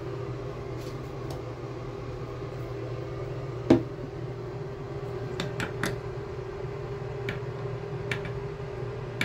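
A steady low hum, with one sharp knock about four seconds in and a handful of light clicks and taps after it, from hands working at a bathroom sink and reaching into its drain.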